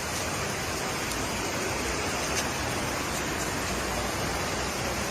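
Steady rushing noise of water, even and unbroken, with a few faint ticks.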